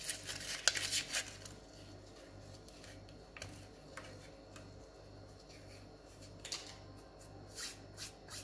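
Foil wrapper of a vegetable stock cube crinkling as it is opened, and the cube being crumbled between the fingers into a stainless steel bowl: crackling and rustling in the first second or so and again near the end, quieter in between. A faint low hum runs underneath.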